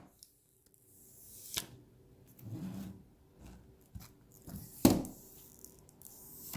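Thin plastic protective film being handled and peeled off a new iPhone X, rustling and crinkling, with two sharp crackles, one about a second and a half in and a louder one near five seconds.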